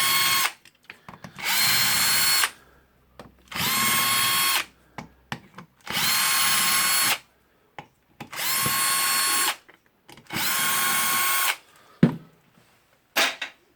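Cordless drill backing out stiff cover screws in short runs of about a second each. There are about six runs, and each spins up quickly to a steady whine. A couple of sharp clicks come near the end.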